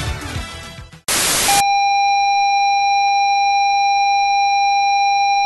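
Music fading out, then a short burst of loud white-noise static followed by a steady electronic beep tone held for about four seconds, like a TV test signal.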